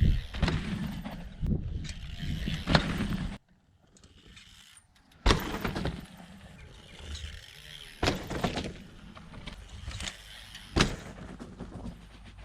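A 2004 Banshee Morphine hardtail mountain bike ridden over rough ground: tyre and frame clatter broken by several sharp knocks. One knock comes just after a brief near-quiet stretch about four to five seconds in.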